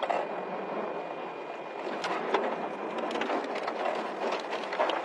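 Steady rushing wind from the tornado's storm, with scattered sharp crackles and taps.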